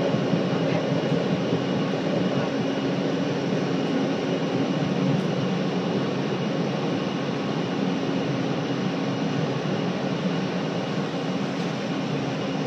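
Scarborough RT train (UTDC ICTS Mark I car driven by linear induction motors) running along the track, heard from inside the car: a steady rushing rumble of wheels and motor. A faint steady hum drops out about five seconds in and comes back near the end.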